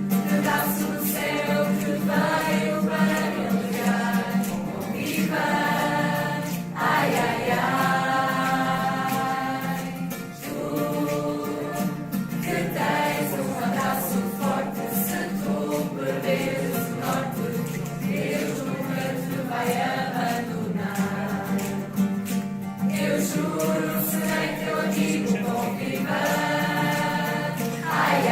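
A choir of voices singing a religious song together, over a steady low tone underneath.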